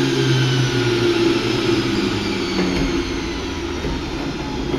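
Electric juicer motor running with a whine that slowly drops in pitch, ending in a sharp knock.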